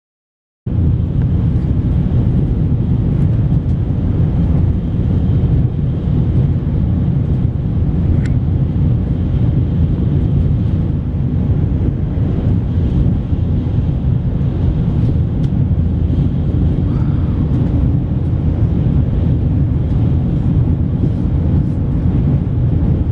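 Steady low rumble of a Tokaido Shinkansen bullet train running at speed, heard from inside the passenger cabin. It starts abruptly just under a second in.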